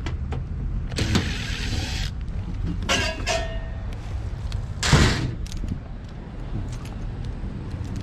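Cordless impact driver running in short bursts on the sheet-metal panel screws of a package air-conditioning unit, once for about a second and again briefly with a short whine, followed by a louder sudden thump-like sound about five seconds in. A steady low rumble sits underneath.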